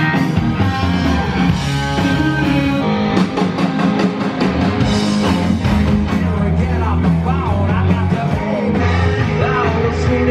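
Live rock band playing, a singer's voice over electric guitar and a steady beat.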